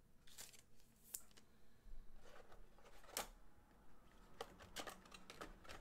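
Near silence with a few faint, scattered clicks and taps of small objects being handled at a desk.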